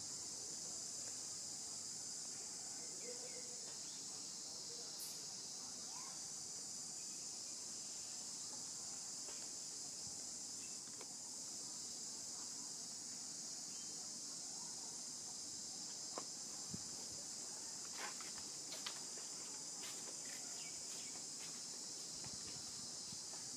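Steady high-pitched drone of an insect chorus, with a few soft clicks in the second half.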